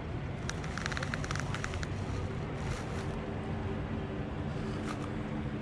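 Steady low rumble of wind and surf, with a quick run of small clicks about half a second to two seconds in as a soft-plastic swimbait is worked onto a jig head. A faint steady drone joins about three seconds in.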